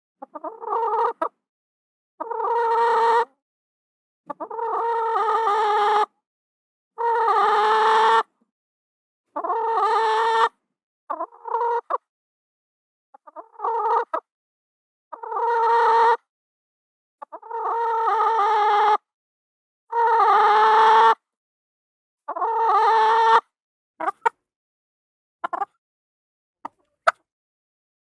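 Chicken calls: about a dozen separate one- to two-second calls, each cut off cleanly with silence between, followed by a few very short clipped sounds near the end.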